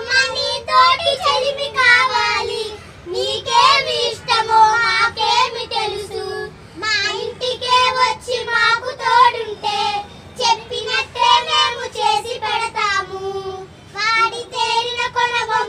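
Children singing a melodic song in phrases, with brief pauses between them.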